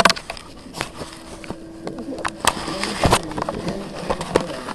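French bulldog puppies scuffling and playing right at the microphone: scattered clicks, scrapes and rustles, with a louder knock about three seconds in.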